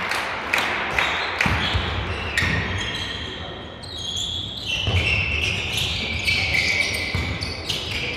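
A volleyball being struck and bouncing on an indoor court, with sharp smacks every second or so and a quieter stretch about halfway through.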